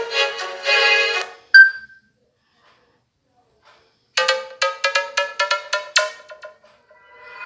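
Microsoft Lumia 535 ringtones playing from the phone. A melodic ringtone ends about a second in, followed by one short, sharp beep. After a pause of about two seconds, the next ringtone starts with a quick run of bright, struck, bell-like notes, about four a second, that trails off into softer notes near the end.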